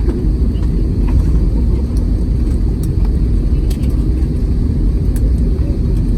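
Airliner cabin noise while taxiing: a steady low rumble, with a few faint clicks.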